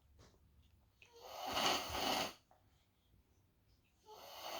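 A little girl snoring loudly in her sleep: one long, noisy snore about a second in, and the next snore starting near the end, about three seconds later.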